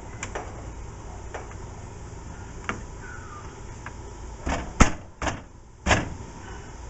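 Hard clicks and knocks of a VW Beetle door's vent window and window regulator being worked into the door shell: light ticks at first, then three loud knocks close together about five seconds in.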